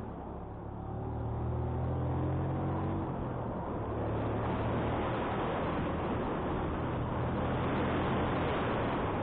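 Motorcycle engine running steadily on the ride, with wind rushing over the microphone. The wind noise grows louder from about four seconds in and partly covers the engine.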